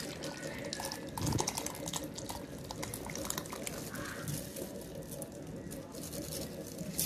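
Ginger garlic soup being poured from a plastic microwave bowl into a glass bowl, splashing and dripping steadily as it fills.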